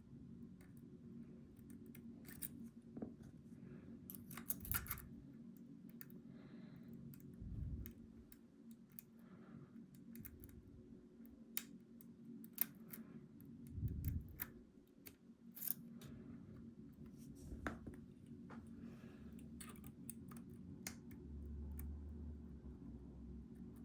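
Lock picks and a tension wrench working the pins of a 14-pin Goal V18 lock: scattered small, irregular metal clicks and scrapes.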